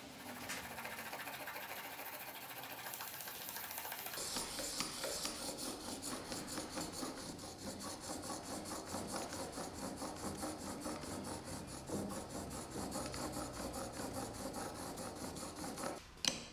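Block plane blade held in a honing guide, rubbed back and forth on a wet 400-grit Japanese whetstone: a gritty scraping that grows louder and falls into quick, even strokes about four seconds in, then stops just before the end.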